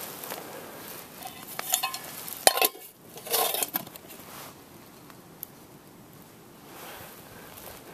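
Metal camp mugs and cookware clinking as they are handled, with a run of clinks in the first few seconds, the loudest about two and a half seconds in, then a short rattle.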